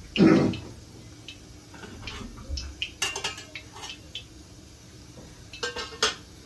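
Steel kitchen utensils clattering as pots, bowls and dishes are handled: a loud dull knock at the start, then scattered metallic clinks, with a cluster about three seconds in and another near the end.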